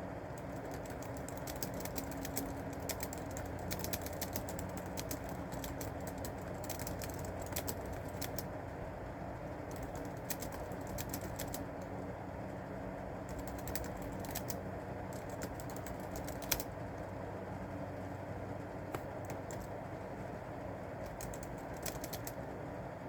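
Typing on a keyboard: runs of quick key clicks broken by short pauses, with one louder keystroke a little past the middle, over a steady background hum.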